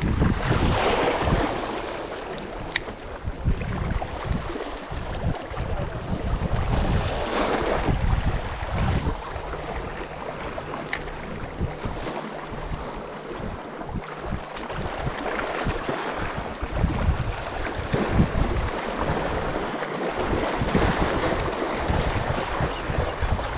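Wind buffeting the microphone over lake water lapping, in uneven gusts, with a few light knocks.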